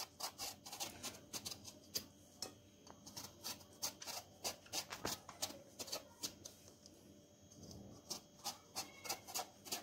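Kitchen knife peeling strips of skin off eggplants: a faint, irregular run of short scraping strokes, a few a second.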